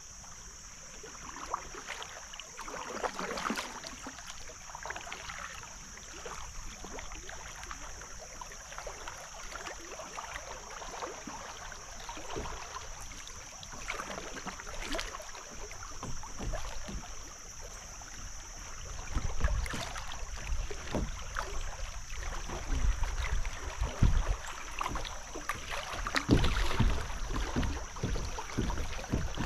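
Small splashes and knocks from a kayak moving on a creek, over a steady high chirring of insects. Louder low rumbles come in from about two-thirds of the way through.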